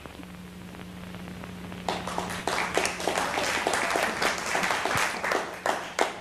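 Audience applause, many hands clapping, starting about two seconds in and growing louder, over a low steady hum.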